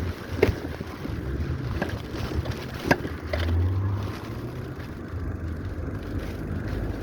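Riding noise from a moving bicycle: wind buffeting the microphone over a steady low rumble from the tyres and frame, with a few sharp knocks or clicks.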